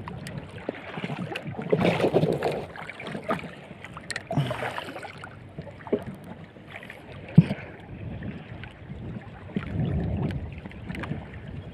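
Water slapping and sloshing against the hull of a small outrigger boat at sea, with wind on the microphone. A few sharp knocks come through about four, six and seven and a half seconds in.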